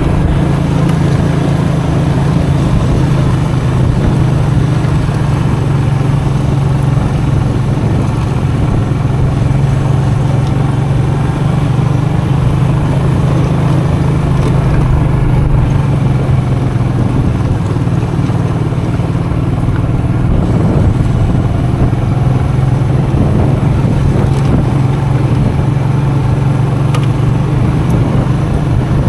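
Custom motorcycle engine running steadily under way, heard from on the bike, with no clear revving or stops.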